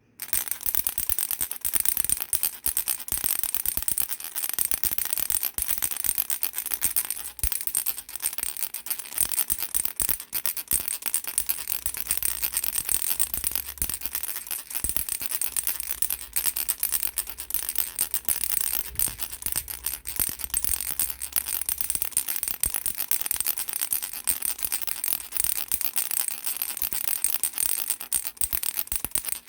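Baby's flower rattle shaken continuously, a dense, unbroken clatter of small hard clicks.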